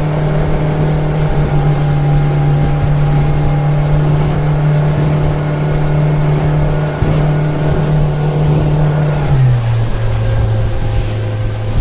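Motorboat engine running steadily at a constant drone, its pitch dropping quickly to a lower steady note near the end as the engine eases off.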